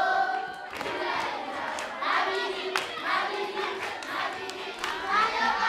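A group of voices singing, with sharp hand claps through the song.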